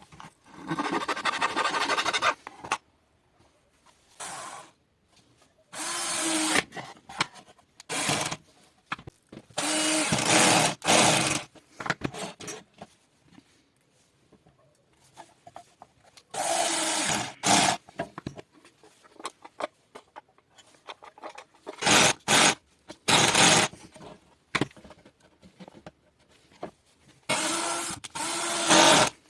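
A power tool run in short bursts against a workpiece, about eight times, each burst lasting half a second to two seconds with quiet gaps between.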